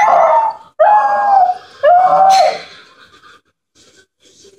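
Jack Russell terrier howling three times in quick succession, each howl falling in pitch at its end, set off by the ringing of the home phone; only faint small sounds follow in the last second or two.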